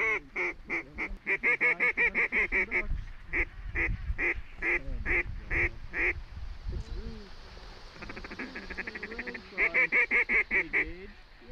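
Mallard quacking: loud quacks in quick, evenly spaced series, then a much faster run of short chattering notes about eight to eleven seconds in.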